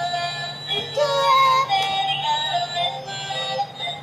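Toy fire truck's built-in sound module playing an electronic song with a synthesized singing voice, set off by its white music button.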